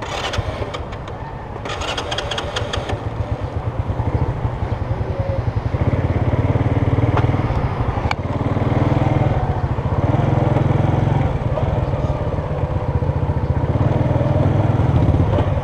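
Small motor scooter's engine running at low riding speed, heard from the rider's seat, with a pulsing note that grows louder over the first several seconds. Two brief rattling noises come near the start.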